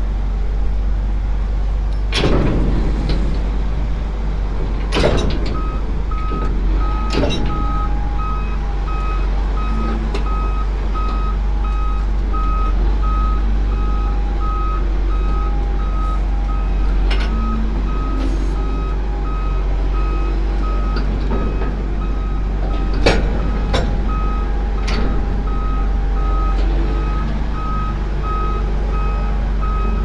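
Reversing alarm beeping in a steady repeating pattern over the low, steady drone of the heavy vehicle's engine as the 130-ton grain mother bin is backed up, with a few sharp knocks and clanks. The beeping starts about five seconds in.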